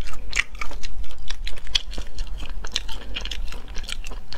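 Close-miked chewing of tough, chewy spicy beef skin and tendon strips: a quick run of wet clicks and crunches from the mouth, several a second.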